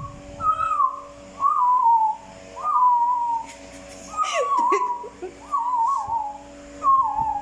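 A person whistling in imitation of parrot calls: about six short warbling whistles, each falling in pitch, roughly one a second.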